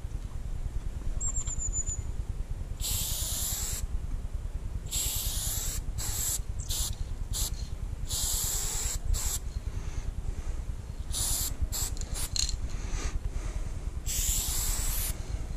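Aerosol spray paint cans hissing in repeated bursts: four sprays of about a second each, with quick short taps in between, over a steady low rumble.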